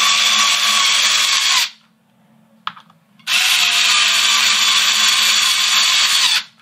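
Cordless drill-driver with a 1/4-inch socket driving hex head screws down through rail chairs into plastic sleepers, in two steady runs: the first stops nearly two seconds in, and after a short pause a second run lasts about three seconds.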